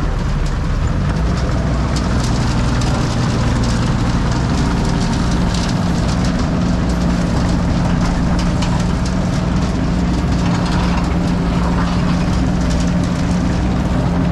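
Heavy machinery running steadily: a loud, continuous low engine drone, with a steady hum that grows stronger about five seconds in.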